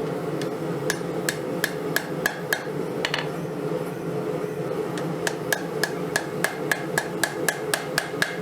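Hand hammer striking hot steel from an old file on an anvil, with a short ring after each blow. There is a run of about six blows, a pause of a couple of seconds, then a steady run of blows at about three a second. A steady low hum runs underneath.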